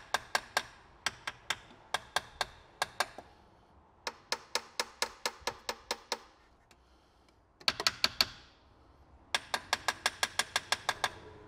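Small pin hammer tapping the clutch actuator motor on the gearbox in quick runs of light, sharp taps, about five a second, with short pauses between runs. The tapping is a test of whether the motor is stuck or sticking and causing the clutch position fault.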